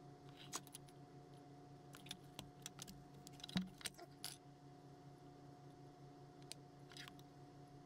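Small metal clicks and taps of hand tools, needle-nose pliers and a soldering iron, handled on a workbench while soldering wires. They come scattered and irregular, the loudest a knock about three and a half seconds in, over a faint steady hum.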